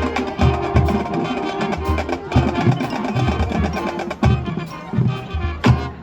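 High school marching band playing, with brass and woodwind chords over bass drums and other percussion. The music ends on a loud final hit near the end.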